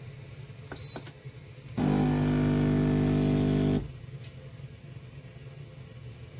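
A short beep and click from the control panel, then the Cecotec espresso machine's vibration pump hums loudly and evenly for about two seconds and cuts off, pushing water through for the long coffee.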